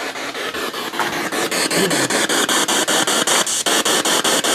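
Radio static from a spirit box sweeping through stations, a hiss chopped into rapid even pulses about nine times a second. It grows louder and brighter about a second and a half in.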